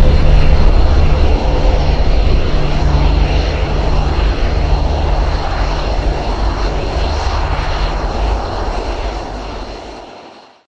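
F-35 Lightning II fighter's single jet engine running while the jet taxis: a loud, steady rush of jet noise that slowly drops and fades out near the end.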